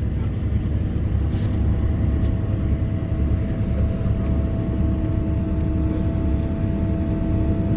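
Bus engine running with a steady low rumble and a thin steady whine, heard from inside the moving bus.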